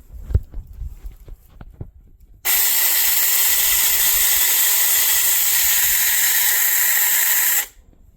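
A loud, steady hiss that starts abruptly about two and a half seconds in and cuts off abruptly about five seconds later, after a few faint knocks.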